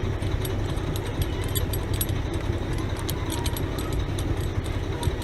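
Truck engine idling steadily, a constant low rumble with faint, irregular light ticking over it.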